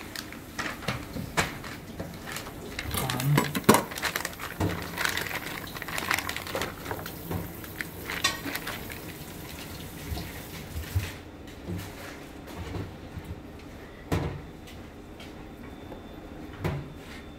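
Dishes and utensils clattering on a stainless steel counter: a string of irregular knocks and clinks, the loudest about four seconds in, thinning out in the last third.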